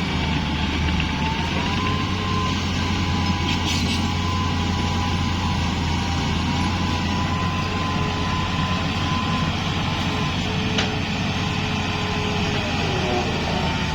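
Heavy earthmoving machine's diesel engine running steadily under load, with a deep low drone and a thin high whine over it.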